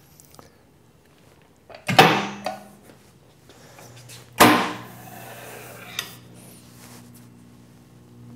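Electromagnetic sheet metal brake clamping down on a sheet. Two sharp metal clunks about two seconds apart, the first the louder, as the clamp bar comes down. From the second clunk on, the electromagnet holds with a steady low hum.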